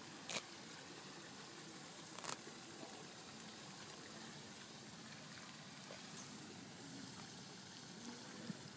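Quiet steady background hiss, broken by two sharp clicks about a third of a second and two seconds in, and a fainter one near the end.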